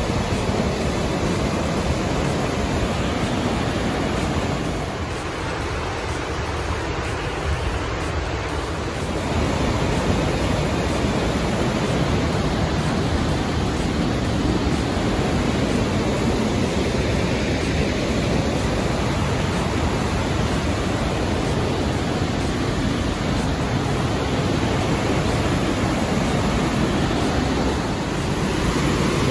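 Steady rushing noise of Burney Falls, water pouring down a cliff into its plunge pool.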